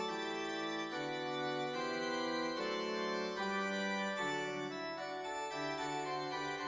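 Background music: sustained organ-like keyboard chords that change about once a second.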